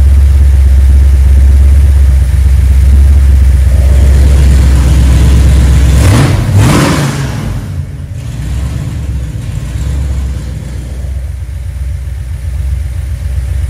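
Chrysler 440 big-block V8 with a tunnel ram and twin four-barrel carburettors, idling fast and loud. About six seconds in it revs up briefly, then settles to a lower, quieter idle.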